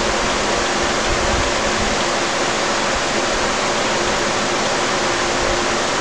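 Steady rushing background noise with a faint low hum, even in level throughout, with a few low bumps in the first second and a half.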